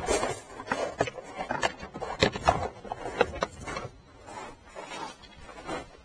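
Handling noise from a hand-carried drone's onboard camera: irregular knocks and rustling, mixed with footsteps on gravel as the carrier walks.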